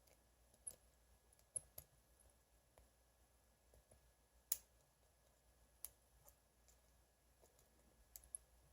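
Faint, irregular metallic clicks of lock picks working in the keyway of a Gibor Bird No. 626 brass padlock that is not yet open. The loudest click comes about halfway through.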